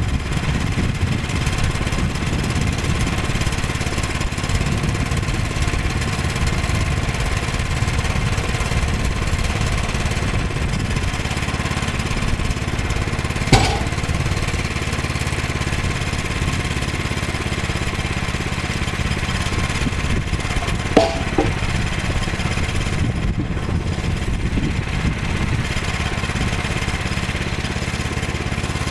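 Small gasoline engine of a Woodland Mills HM122 portable sawmill running steadily, with two sharp knocks, one about halfway through and another about seven seconds later.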